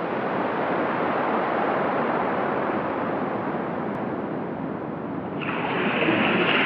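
Steady rushing noise with no distinct impacts or tones. About five and a half seconds in it turns suddenly brighter and hissier.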